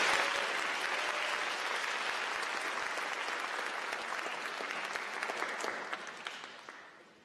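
Audience applauding, loudest at the start and dying away near the end.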